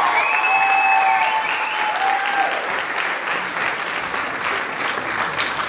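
Audience applauding, the clapping easing slightly toward the end.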